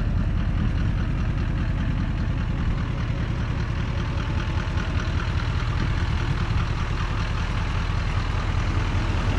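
Vehicle engine running steadily with a low, even rumble.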